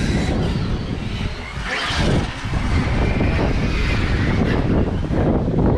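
Electric RC cars running on a wet track: motor whines rising and falling in pitch as they accelerate and slow, over a steady low rumble.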